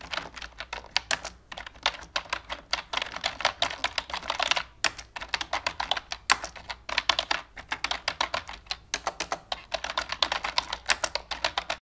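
Computer keyboard typing: fast, irregular runs of key clicks with short pauses, stopping suddenly near the end.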